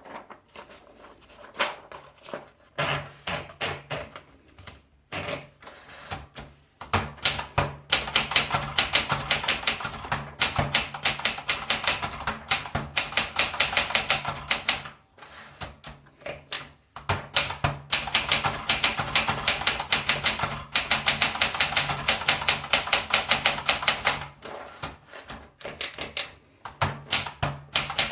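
Olympia Splendid 33 manual portable typewriter being typed on: quick runs of sharp key and typebar strikes, several a second, broken by brief pauses.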